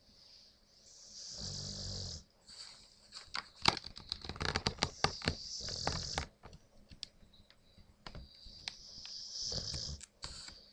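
A sleeping dog snoring in slow, wheezy breaths. About two and a half seconds in comes the loudest part, a roughly three-second run of rapid clicking, rattling pops, before the slow snoring breaths return near the end.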